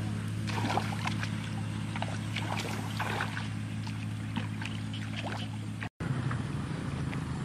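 Footsteps splashing and squelching through shallow water and mud, over a steady low motor hum. The sound cuts out for an instant about six seconds in.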